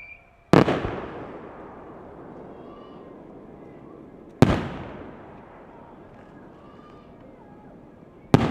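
Aerial firework shells bursting: three sharp bangs about four seconds apart, each trailing off in a long echo.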